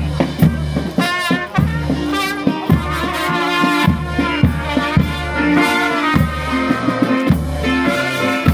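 Brass music, trumpets and trombones playing held notes over a steady drum beat and bass.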